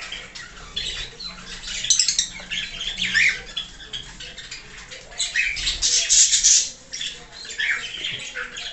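Birds calling with high, scratchy calls in short runs, loudest about six seconds in.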